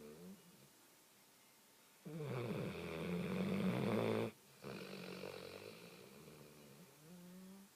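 A dog snoring, two long snoring breaths about two seconds in. The first grows louder, and after a short break the second fades away.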